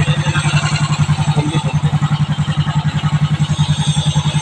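Rebuilt Suzuki Raider J's four-stroke engine idling steadily, with quick, even exhaust pulses. It runs freshly rebuilt with a new camshaft, rocker arms and piston, with no abnormal engine noise.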